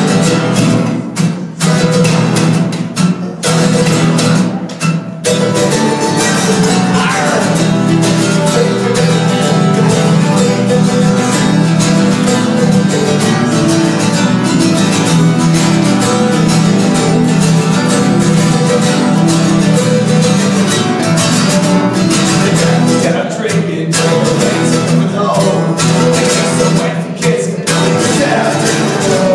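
Two acoustic guitars and a mandolin strummed and picked together in live acoustic band music, with a few short breaks in the first seconds before settling into steady playing.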